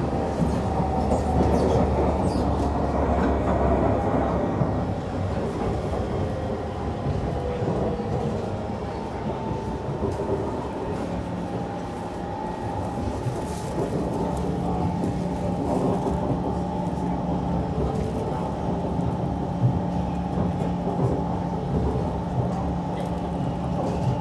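Siemens C651 MRT train running along the track, heard from inside the car: wheels and running gear rumble on the rails, with a steady hum from the traction equipment that comes through more clearly about halfway through.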